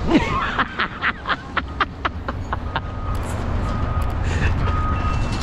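A GMC pickup truck's engine idling close by, its low rumble building steadily. In the first few seconds it is overlaid by a quick run of short sharp sounds, and from about halfway by a faint high steady tone that comes and goes.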